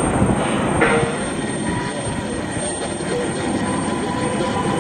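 Airbus A320 jet engines running as the airliner passes low overhead on approach: a loud, steady rumble with a faint whine.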